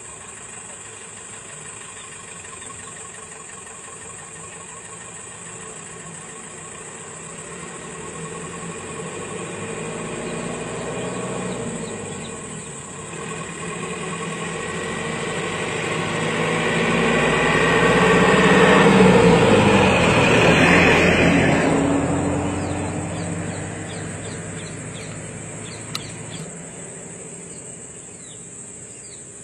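A bus's diesel engine pulling away and driving past. It builds over several seconds, is loudest about two-thirds of the way through with its pitch falling as it passes, then fades. A steady high insect drone runs underneath.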